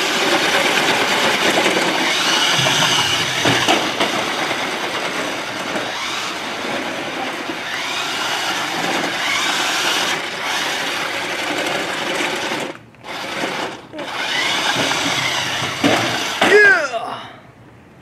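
Electric motor of a remote-control monster truck whining as it drives, with its big rubber tyres rolling over stone pavers. The sound cuts out briefly twice about two-thirds of the way through.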